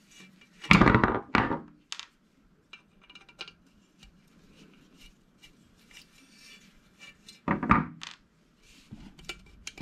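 Screwdriver work on a sheet-metal shielding cage as its screws are backed out: two loud metallic clanks about a second in and another shortly before the end, with small clicks and scrapes between.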